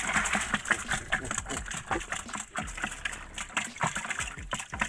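Water pouring and splashing inside a small boat, in a quick irregular run of small splashes and sloshes.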